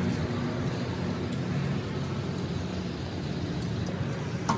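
An engine running steadily with a low rumble, and a sharp knock right at the end.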